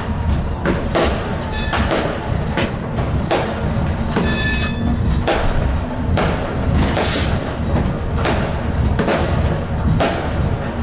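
New Year's Eve fireworks and firecrackers going off all around: sharp bangs at irregular intervals, about two a second, with a crackling burst about four and a half seconds in and a hissing one around seven seconds. Underneath is the steady low rumble of the Stadtbahn light-rail car running.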